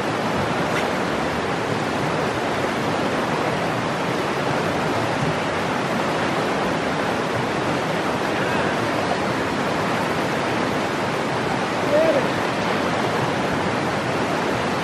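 Shallow river rapids rushing steadily over stones, a constant hiss of running water. One short pitched chirp cuts through briefly near the end.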